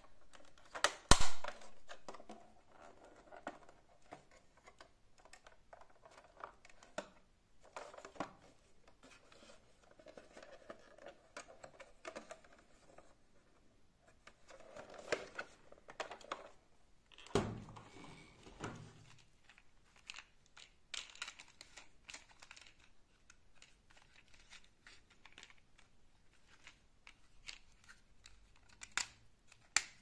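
Hands handling plastic toy vehicles in a cardboard box: scattered clicks and taps of plastic, with a few louder knocks about a second in and a heavier thump a little past halfway.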